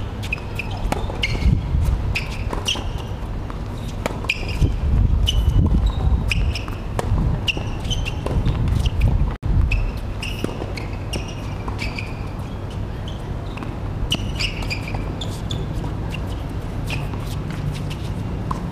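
Tennis racquet strikes and ball bounces during a rally on a hard court, with many short high chirps scattered throughout and a steady low rumble underneath.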